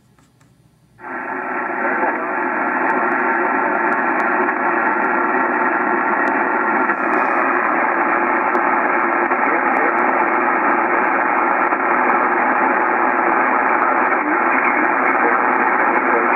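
Yaesu HF transceiver's speaker hissing with 10-meter band noise on sideband reception, cut off above voice pitch. The hiss comes up suddenly about a second in and then holds steady.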